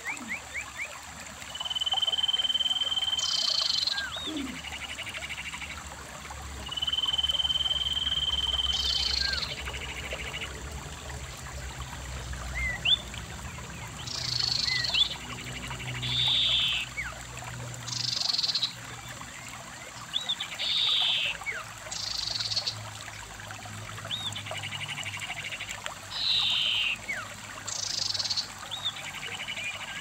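Songbirds calling over a shallow stream flowing across rocks: repeated high trills about a second long every few seconds, two long steady whistles in the first ten seconds, and short chirps, over the soft steady rush of the water.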